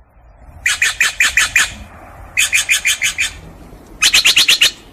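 Steller's jay giving its loud, demanding call: three rapid runs of about six or seven repeated notes each, with a pause between runs.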